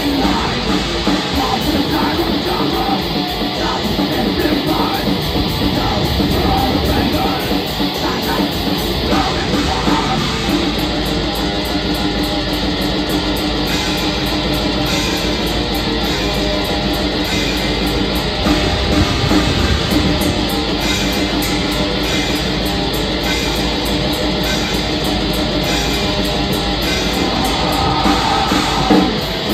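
Black metal band playing live: distorted electric guitars and drums, loud and unbroken.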